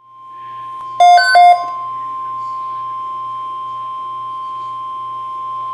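NOAA Weather Radio's steady single-pitch warning alarm tone, the attention signal that comes before an emergency weather alert message. About a second in, two short, loud electronic beeps at a lower pitch sound over it.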